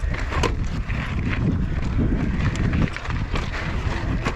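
Mountain bike rolling over rough trail: tyres crunching and the bike rattling, with irregular knocks, over a steady low rumble of wind on the microphone.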